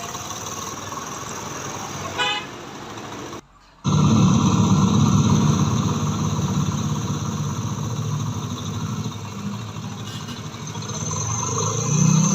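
A 70cc four-stroke single-cylinder motorcycle engine running steadily, its flywheel magnet freshly riveted and tightened so that the knocking from the loose magnet is gone. There is a short tone about two seconds in and a brief drop-out about three and a half seconds in. The engine is louder after the drop-out and picks up again near the end.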